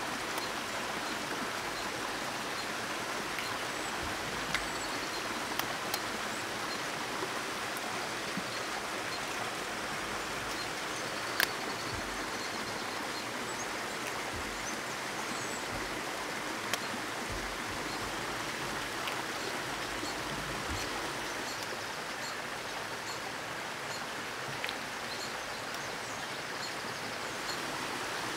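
Steady rush of a flowing stream, with a few sharp clicks of eggshells being cracked by hand.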